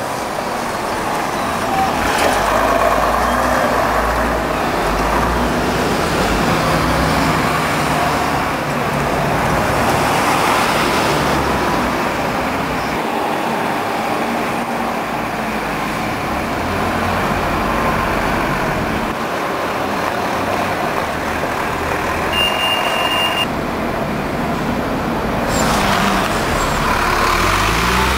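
Diesel engines of double-deck buses running and pulling past close by, over general street traffic. Near the end one engine's pitch rises as a bus accelerates away, and a short high beep sounds about two-thirds of the way through.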